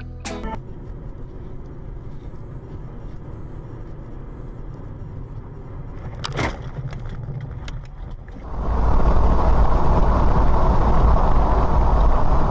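Car road and engine noise picked up by a dash cam. A moderate rumble is broken by one sharp knock about six seconds in. Then, about eight and a half seconds in, a much louder steady rumble of road and wind noise sets in.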